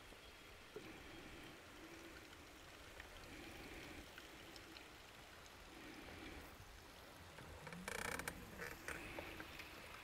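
Faint, quiet turning of a spinning reel as a swimbait is worked back, with a short, louder rattling noise about eight seconds in.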